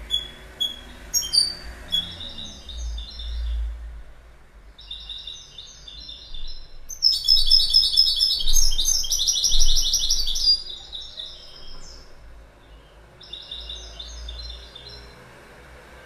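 European goldfinch singing: bursts of rapid, high twittering phrases, with the longest and loudest run of song from about seven to ten and a half seconds in, then a shorter burst near the end.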